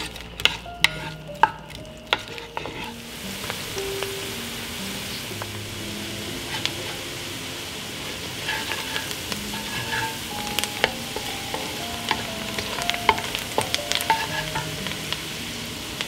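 Chopped onions sizzling in melted butter in an enamelled pot while a wooden spatula stirs and scrapes them. A few sharp knocks come in the first two seconds, then a steady sizzle builds from about three seconds in, dotted with the spatula's clicks and scrapes against the pot.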